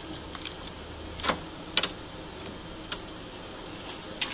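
Scattered sharp metal clicks and knocks, a few of them roughly a second apart, from hands working an A/C refrigerant pipe loose at its condenser fitting in an opened-up engine bay.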